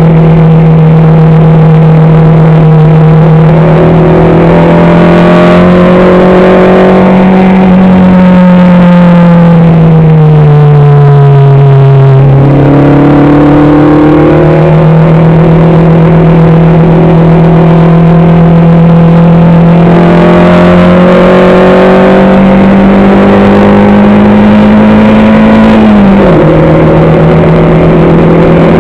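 Racing vehicle's engine heard onboard, loud and running under load throughout. Its pitch sinks and then jumps back up about twelve seconds in. Near the end it climbs slowly and drops sharply at a gear change.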